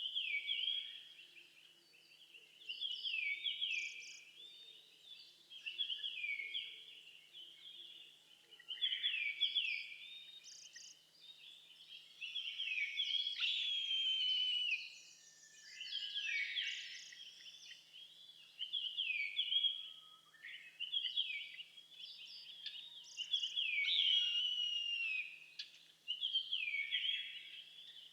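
Eastern buzzard calling over and over: drawn-out calls that fall in pitch, one every two or three seconds. Short high notes from smaller birds come in now and then.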